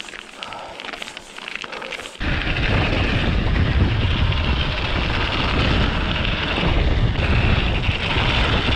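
Mountain bike riding on a snowy forest track: faint tyre crunch with small clicks and rattles. After about two seconds it gives way abruptly to a loud, steady rush of wind on the microphone with rumbling tyre noise as the bike rolls fast.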